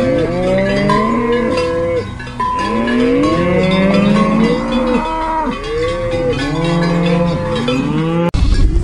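A herd of cattle mooing, many long calls overlapping one after another. About half a second before the end the sound cuts off suddenly into a louder, noisier one.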